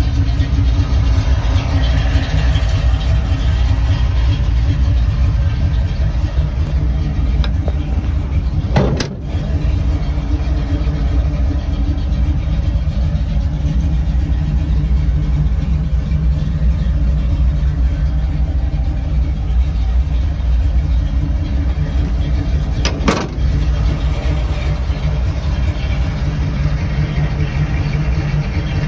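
1981 Jeep CJ7 engine idling steadily, with two brief clicks, one about nine seconds in and another a little past twenty seconds.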